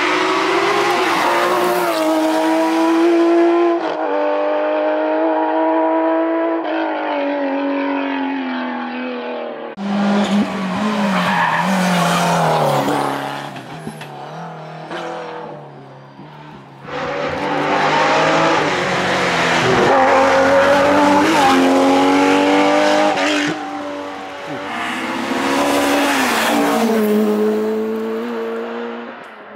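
Historic rally cars driven flat out on a gravel or tarmac stage, engines revving hard with the note climbing and dropping through gear changes. The sound changes abruptly twice, about ten and seventeen seconds in, as different cars pass.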